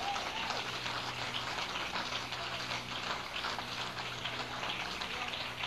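Small audience applauding, a dense steady patter of clapping at the end of the song, over a steady low electrical hum.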